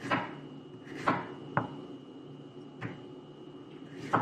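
Chef's knife slicing through a zucchini and striking a wooden cutting board: five separate chops, unevenly spaced about a second apart.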